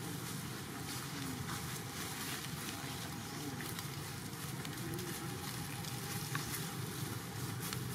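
Dry fallen leaves crackling and rustling as baby monkeys scuffle and roll on the leaf litter, over a steady low background rumble.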